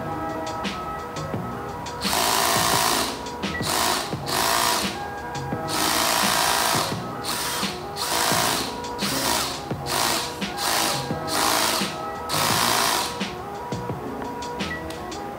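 Cordless drill boring into a wooden shelf board, run in repeated short bursts of about half a second to a second, over background music.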